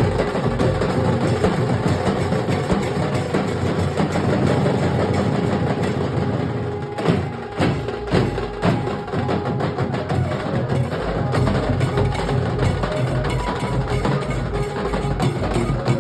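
Nasik dhol ensemble drumming: large dhol drums beaten with sticks in a loud, dense, driving rhythm, with a few sharper strokes standing out about halfway through.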